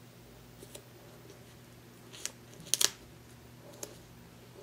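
Ballpoint pen writing on paper: a few short strokes, the loudest pair just under three seconds in, over quiet room tone.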